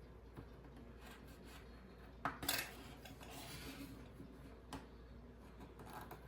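Tweezers clicking and scraping against an iPhone's frame while the frame is cleaned. There are a couple of sharp clicks about two seconds in, then a brief scrape, and a few lighter ticks later.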